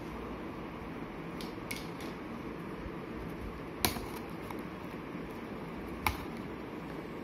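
A few sharp clicks over steady background noise, the two loudest about four and six seconds in: a small red-handled tool tapping and working at the packing tape of a cardboard shipping box.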